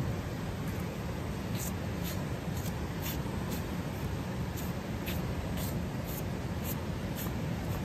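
Knife slicing the skin away from a hanging lamb carcass: faint, irregular scratchy strokes about once or twice a second over a steady low rumble.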